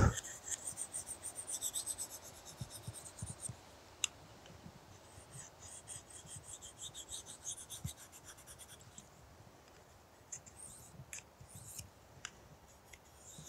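Steel knife blade being drawn quickly back and forth along a ceramic pocket hone, a faint scraping rasp in two runs of rapid strokes with a short pause between, followed by a few light clicks.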